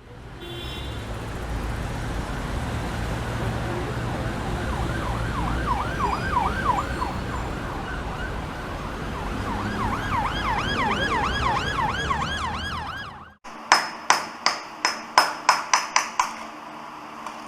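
Emergency vehicle siren wailing in a fast up-and-down yelp, heard in two stretches over a steady low rumble. After a sudden cut come about eleven sharp clinking taps with a high ring, coming faster toward the end.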